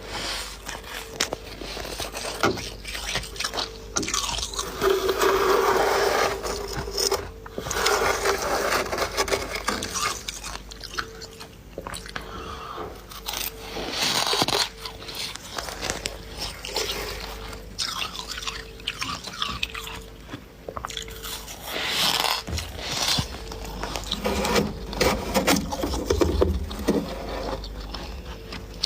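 Humidifier frost ice being bitten and chewed, a run of irregular crunches that keeps going.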